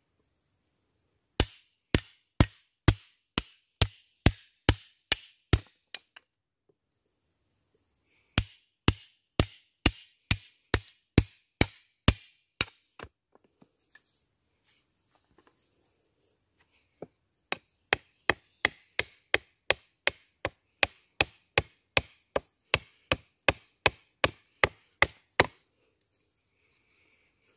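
A hand tool chopping into wood with sharp, evenly spaced blows, about two a second. The blows come in three runs, and the last run is longer and a little quicker.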